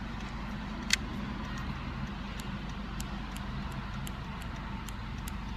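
Steady low engine hum heard inside a parked car's cabin, with a sharp click about a second in and a few faint ticks after as a folding knife is handled.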